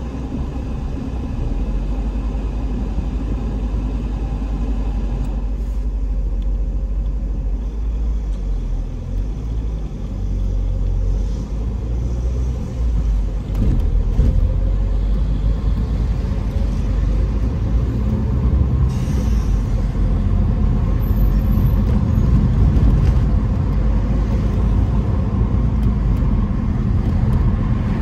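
Car in city traffic: a steady low engine and road rumble. It gets louder about halfway through as the car pulls away from the traffic lights and drives on.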